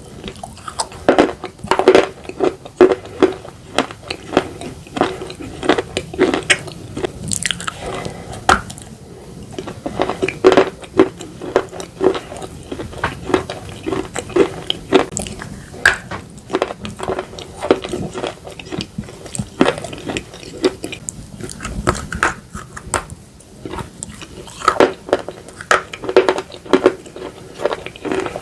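Close-miked biting and chewing of slate pencils and slate bars: a dense run of sharp crunches, several a second, with short pauses between bites.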